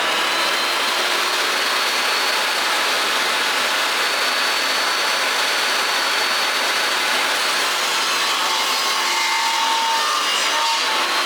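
Table saw running and cutting a shallow slot along a wooden board: a steady, even cutting noise with a faint high whine from the blade throughout.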